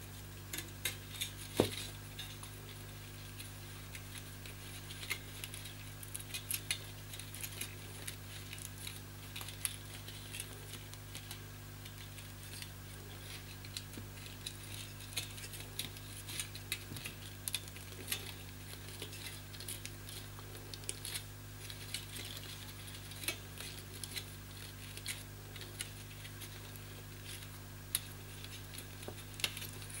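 Irregular small metallic clicks and scratches as fine resistance wire on a hair dryer's heating element is twisted together by hand, over a steady low hum.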